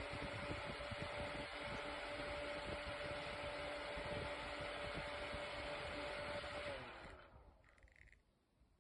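ELZO rechargeable USB desk fan blowing steadily with a motor hum, then switched off about seven seconds in, its hum dropping in pitch as the blades spin down. A short faint beep follows just after it stops.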